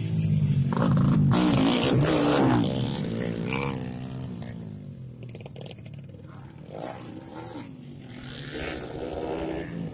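Dirt-bike engines racing through a corner, loud and revving with a rising and falling pitch for the first couple of seconds, then fading as the bikes ride off up the track.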